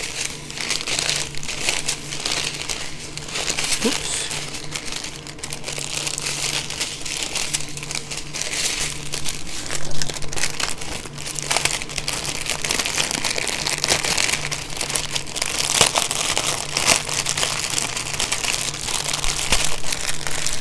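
Small plastic bags of diamond-painting drills (rhinestones and special-shape gems) crinkling and rustling as they are handled, with dense crackles throughout.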